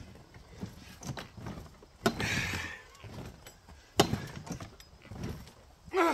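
Scattered knocks and thuds, the loudest about four seconds in, with a brief scraping hiss about two seconds in.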